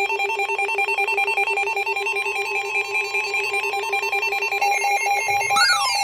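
NOAA weather radios going off for a severe thunderstorm warning: a rapid, high-pitched pulsing alarm beep. About five and a half seconds in, a second receiver's rising and falling siren-like wail joins it.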